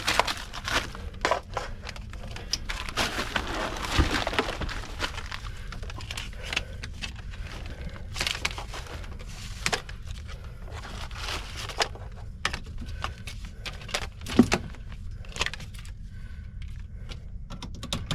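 Irregular clicks, light rattles and crackles of handling over a steady low hum.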